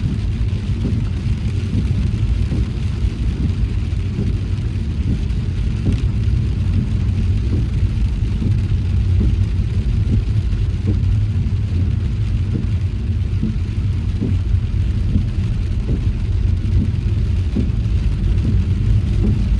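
Car driving along a road: a steady low rumble of engine and road noise, with a faint hiss above it.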